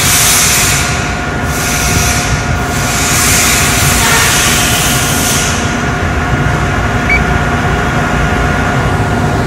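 Mazak CNC machining center running its automatic Z-axis probing cycle, with the spindle-mounted probe feeding down toward the workpiece. It gives a steady machine hum with a faint steady tone, and a hiss that drops away about five and a half seconds in.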